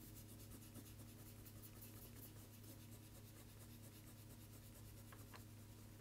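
Faint, rapid strokes of a coloured pencil rubbing on paper, over a low steady hum.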